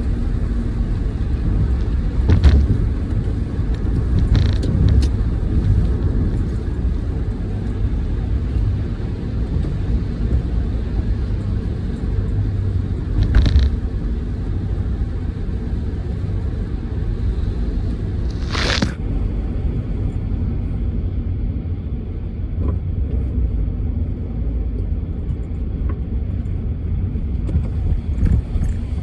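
Car driving in the rain: a steady low road and engine rumble under a faint hiss, with three brief louder swishes spread through it.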